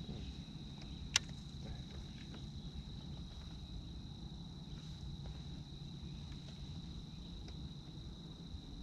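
Quiet outdoor ambience: a steady high-pitched whine over a low rumble, with one sharp click about a second in.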